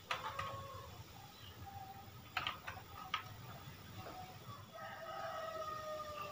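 A few faint plastic clicks as RCA audio and video plugs are pushed into the TV's AV jacks, then a rooster crowing in the background, one long, slightly falling call near the end.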